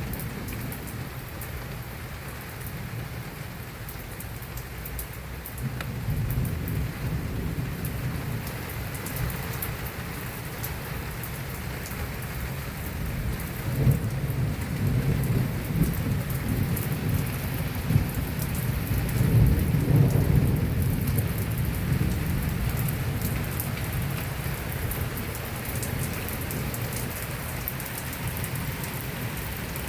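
Heavy rain falling steadily, with a low rumble that swells twice in the middle, loudest about twenty seconds in.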